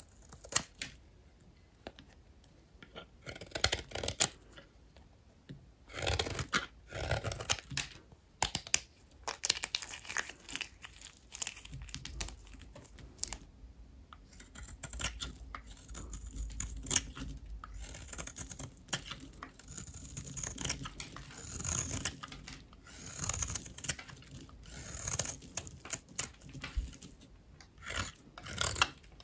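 A blade cutting through dry, brittle bar soap: irregular crackling and crunching as the soap splits and crumbles, with short scraping strokes.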